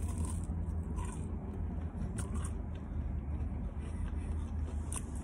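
A bite into a fried hush puppy and chewing, with a few faint short crunches, over a steady low rumble of the car cabin.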